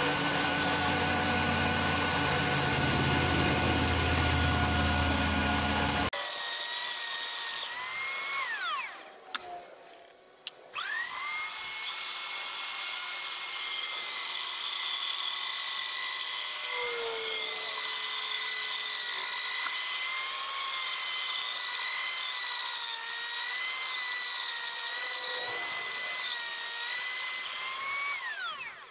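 Tool post grinder on a mini-lathe, its high-speed rotary burr whining as it mills flats on a metal workpiece held in a locked chuck. About six seconds in the sound changes abruptly to a cleaner, steady high whine. The whine winds down and stops around nine seconds, starts again about a second and a half later, and winds down again at the very end.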